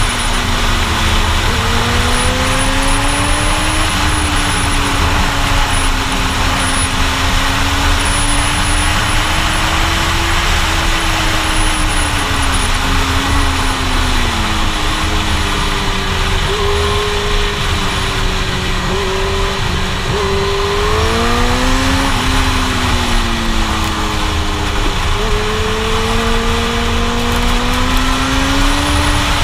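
Suzuki GSX-R1000 sport bike's inline-four engine at speed, its note rising and falling repeatedly as the rider accelerates and eases off through the bends. Heavy wind rush on the microphone runs under it.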